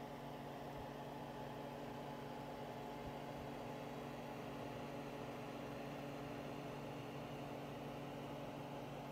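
Steady low hum made of several held tones under an even hiss: background room noise with no events.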